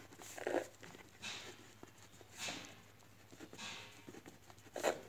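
Faint scratching of a ballpoint pen writing on paper, in short strokes about once a second.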